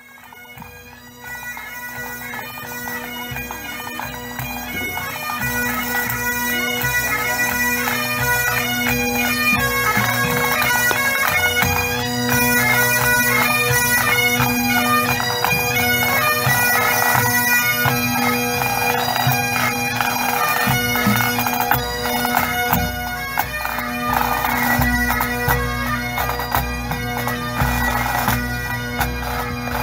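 A pipe band's Highland bagpipes playing a tune over their steady drone; the sound grows louder over the first several seconds.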